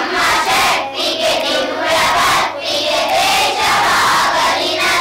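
A class of children singing a line of a Kannada song back together in unison, loud and a little ragged, in phrases about a second long.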